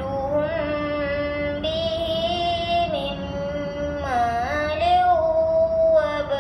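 A young girl's voice reciting the Quran in melodic tarannum style, drawing out a series of long held notes that glide and waver in pitch, with short breaks between phrases.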